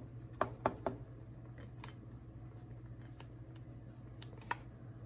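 Scattered light clicks and taps of hands working a vinyl wrap onto an AR-15 magazine, three close together in the first second and a few more spread out after, over a faint steady hum.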